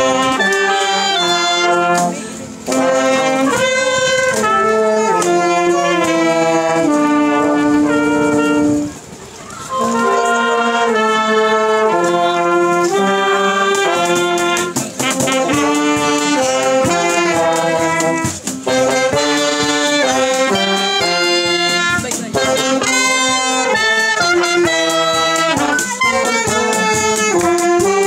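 Small brass band of trumpet, trombones, clarinet, saxophone and a large bass horn, backed by an electric bass guitar, playing a tune together, with two brief breaks about two and nine seconds in.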